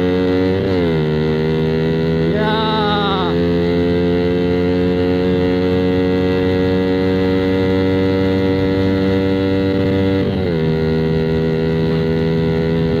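Suzuki Satria FU's single-cylinder engine running loud and steady through a KAU Mahachai racing exhaust while the bike is ridden. Its pitch drops sharply about half a second in and again about ten seconds in. A short, higher, wavering tone sounds about two and a half seconds in.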